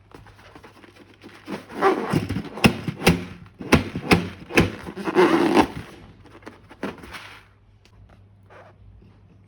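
Hands working slime, giving irregular sharp clicks and crackles that come thick and fast from about a second and a half in, then thin out near the end.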